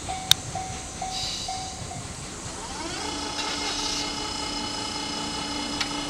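Japanese level-crossing alarm ringing its electronic bell about twice a second, which stops about two seconds in as the train clears. From about three seconds in, the receding E231-series electric train gives off a steady high whine made of several pitches at once.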